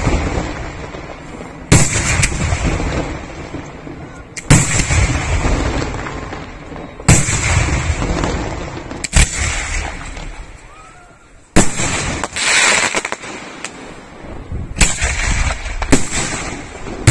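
Aerial fireworks shells bursting in a display. About seven loud booms come two to three seconds apart, each fading away in a long rumbling echo.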